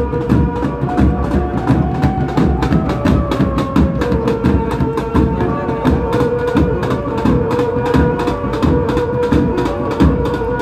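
A street band of drummers beating large bass drums and smaller hand-carried drums in a fast, steady rhythm, with a held melody line sounding above the beat.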